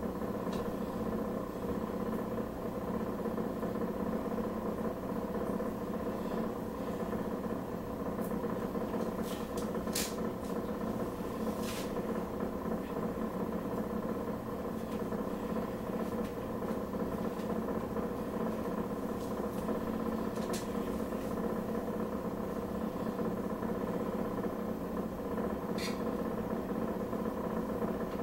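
Steady mechanical hum of a kitchen range hood's exhaust fan running, with a few short clicks about ten seconds in, twelve seconds in and near the end.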